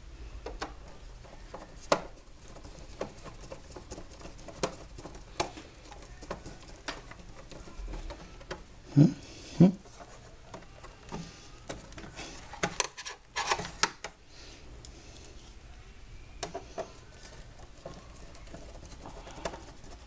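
Scattered light clicks and taps of a screwdriver working a screw into the sheet-metal chassis of a Posiflex Jiva POS unit. There are two louder short low knocks about nine seconds in and a quick flurry of clicks around thirteen seconds in.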